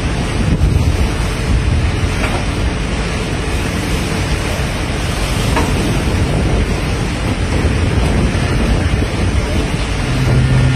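Wind buffeting the microphone over the rushing sea water of a navy destroyer's bow wave and wake: a loud, steady rushing noise with a heavy low rumble.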